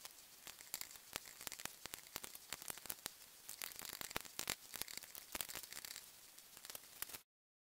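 Fine-tipped pen scratching and ticking across the glittery metallic surface of a silver medallion as a pattern is drawn onto it: a dense, irregular crackle of small clicks that cuts off suddenly near the end.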